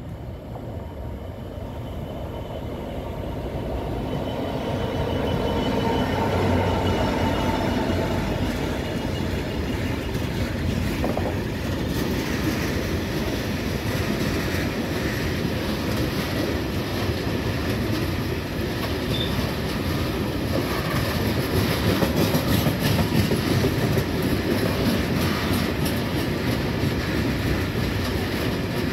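A Class 66 diesel freight locomotive grows louder as it approaches and passes over about the first six seconds. It is followed by a long rake of loaded ballast wagons rolling by, their wheels clicking rhythmically over the rail joints.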